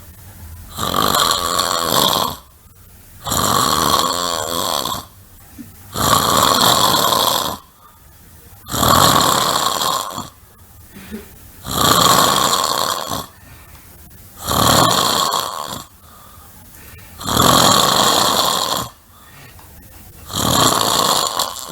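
A person snoring loudly, one long snore about every three seconds, eight snores in a row.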